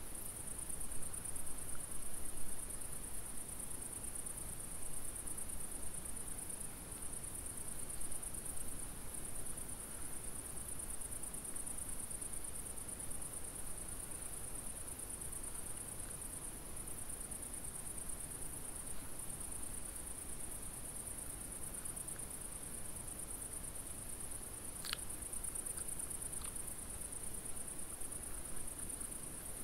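Night insects in the grass, crickets, trilling without a break as one steady high-pitched band. Two short clicks sound near the end.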